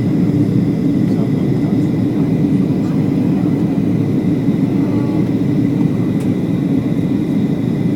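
Aircraft in flight: a steady, loud drone of engines and airflow, with a faint high whine on top.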